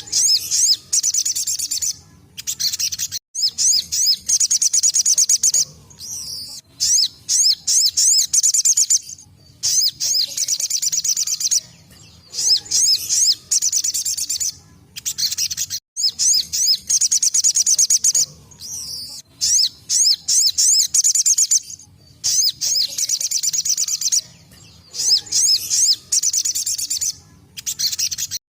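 Crimson sunbird (sogon) singing its 'tembakan' song: very high-pitched, rapid twittering trills in bursts of one to three seconds, repeated with short pauses.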